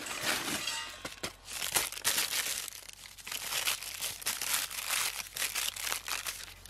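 Dried alder cones being tipped out of a paper bag into an old pot: paper crinkling and rustling with many irregular small clicks and rattles of the cones.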